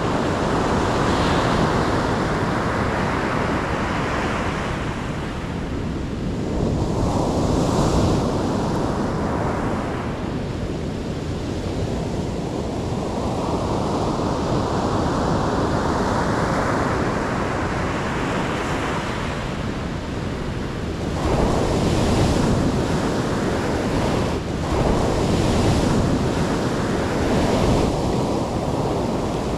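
Ocean waves breaking and washing onto the shore in a continuous rush, with several louder breaks, with wind on the microphone.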